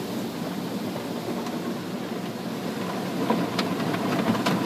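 Automatic car wash running around a car, heard from inside the cabin: a steady rushing noise that grows slightly louder, with sharp taps against the car beginning about three seconds in.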